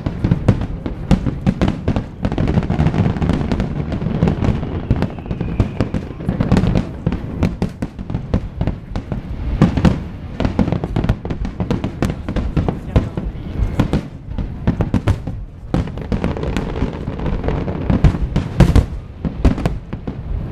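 Electronically fired aerial fireworks bursting in rapid, irregular succession: many sharp bangs and crackles over a continuous low rumble. Music plays underneath.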